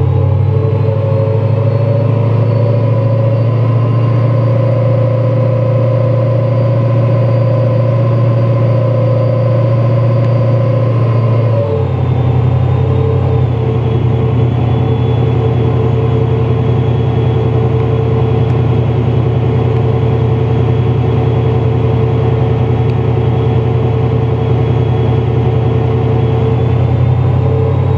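Supercharged Holden VX Clubsport 5.7-litre V8 running loud on a chassis dyno, held at a steady speed. About twelve seconds in, the pitch drops in one step and then holds steady again.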